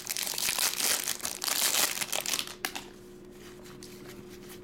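Foil wrapper of a baseball card pack crinkling and tearing as it is opened and handled, dense for about three seconds, then dying down.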